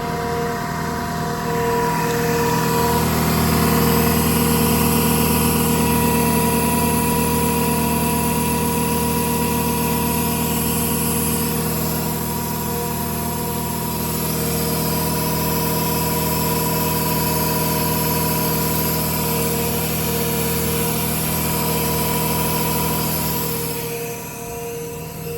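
The truck's Quincy air compressor runs steadily, coming up about two seconds in and cutting out near the end. Under it the truck's 6.4 Power Stroke diesel runs with a steady whine.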